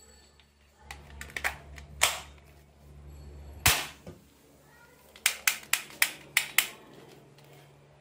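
Plastic clicks and knocks from a toy AK-47 rifle as its magazine is fitted, with one louder knock, then a quick, even run of six sharp clicks, about four a second.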